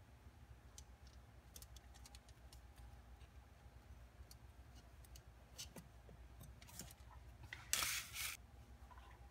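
Faint clicks and light scraping of a small knife working between freshly baked roast paan loaves on a foil-lined baking tray, with a short, louder rustle near the end.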